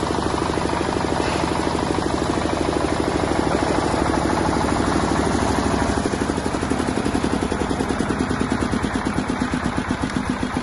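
A 7.5 kVA Bajaj diesel generator's engine, in its open (non-soundproofed) version, is running with a rapid, even knocking beat. About six seconds in, the firing beat becomes slower and more distinct.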